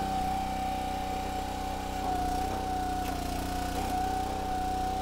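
Small gasoline engine of a Split-Fire 1165V vertical log splitter running steadily at throttle, driving its hydraulics, with a steady high whine over the engine note.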